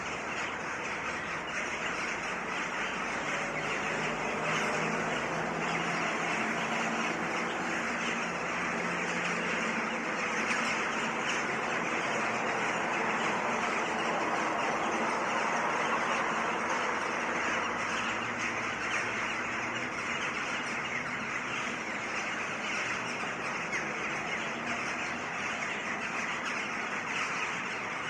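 Urban outdoor ambience: a steady wash of road traffic noise, with birds calling in the mix.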